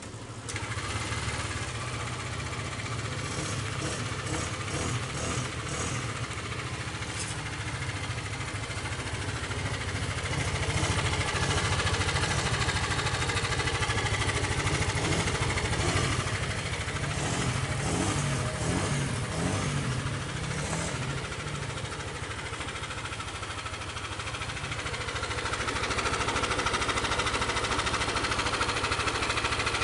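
Yamaha Aerox scooter engine running steadily close up, getting somewhat louder about ten seconds in and again near the end.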